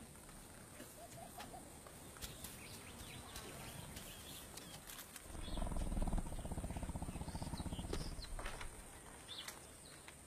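Scattered bird chirps, then about five seconds in a tiger gives a low, pulsing growl lasting about three seconds.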